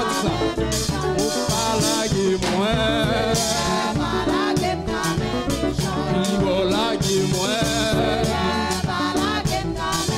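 Amplified gospel praise song: singers on microphones over an instrumental accompaniment with a steady drum beat.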